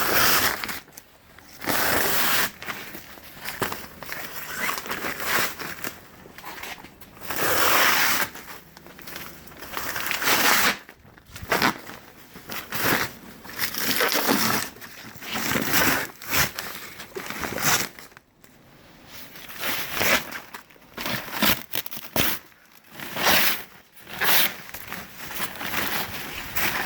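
Peel ply being torn off a freshly cured fiberglass laminate in a series of loud ripping pulls, each about a second long, with short pauses between.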